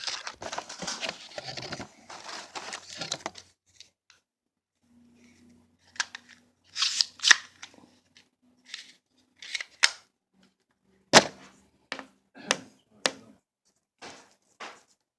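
Handling noise: rustling and crinkling for about three seconds, then scattered light clicks and taps, with one sharper click about eleven seconds in.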